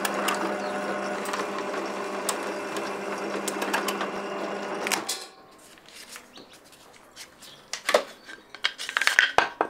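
Bench drill press running steadily and boring through a wooden block: an even motor hum with the bit cutting wood. It stops abruptly about five seconds in, and a few sharp knocks follow near the end.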